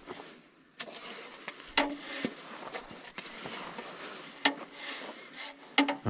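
A hand-held tobacco planter being worked in the soil: about five sharp clicks and knocks a second or two apart, over soft rustling.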